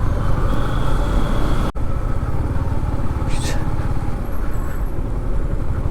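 Riding noise aboard a Yamaha MT-15 on its stock exhaust: the engine running under a steady low rumble of wind and road noise, with a momentary break about two seconds in.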